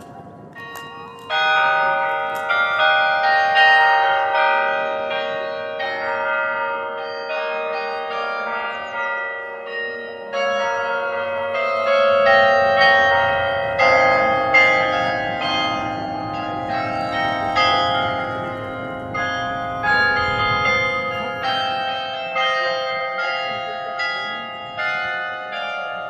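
Carillon Berlin's tower bells, hand-played, ringing out a melody in chords. The playing starts about a second in after a short quiet gap, and each struck note keeps ringing into the next.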